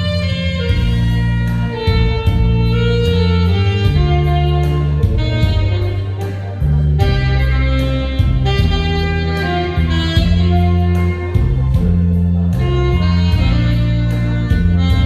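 Saxophone playing a slow, sustained melody over a backing track with a steady bass line.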